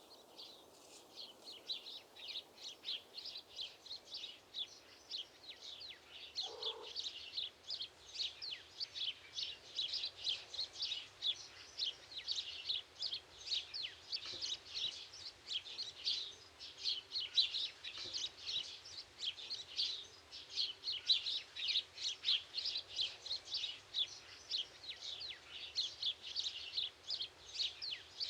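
Small birds chirping and twittering in a busy, continuous chatter of many short calls a second, growing denser after the first several seconds. A single short, lower-pitched call breaks in about six and a half seconds in.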